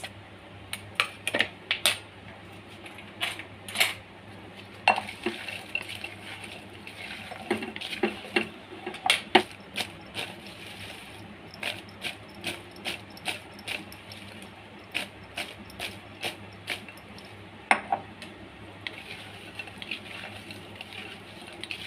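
Fried potato pieces being tossed and stirred with dry spice mix in a glass bowl with a wooden spatula: irregular light clicks and knocks of the spatula and potatoes against the glass.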